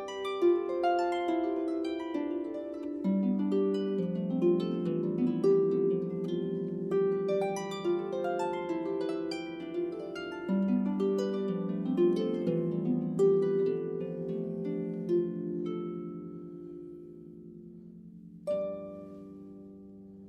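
Solo harp playing a gentle melody over plucked chords, the notes ringing on. Near the end the playing thins out and dies away, then one fresh chord is plucked.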